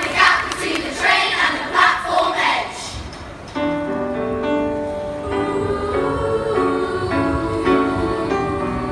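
A group of children shouting and calling out together, then about three and a half seconds in, music starts with steady held notes.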